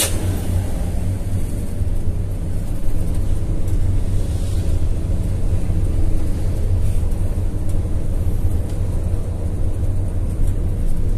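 Coach bus engine running steadily as a deep drone under tyre and road noise, heard from inside the cabin near the front.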